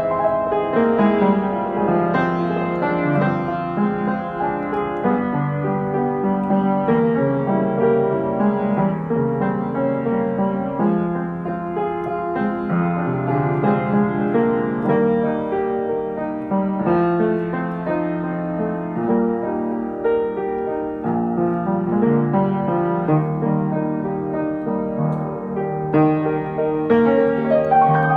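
Piano music played at a slow pace, chords and melody notes changing every second or two.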